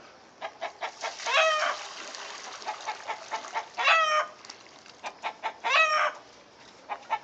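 A chicken held pinned to the ground gives three short squawks: one about a second in, one at about four seconds and one near six seconds. Between the first two, hot water pours from a pot into a basin with a soft splashing hiss.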